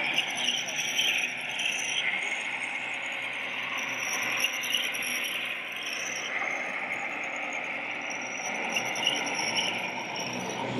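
Radio-controlled scale model of a Kirovets K-700 tractor driving over dirt, its drive giving a thin high whine that wavers and comes and goes. Under it runs the steady noise of a busy exhibition hall.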